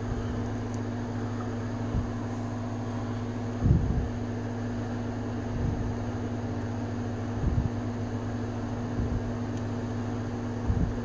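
Steady low electrical hum, with soft handling knocks and rubs from hands moving a plastic Alpha 5 action figure, about six of them, the loudest about four seconds in.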